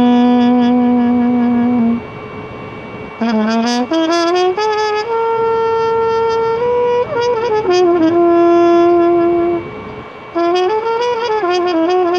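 Solo trumpet improvising in maqam Hijaz with Athr Kurd. It holds a low note, then after a short lull runs quickly upward into a long higher note. It slides down to a held middle note and, after a brief break, ends on a wavering ornamented phrase.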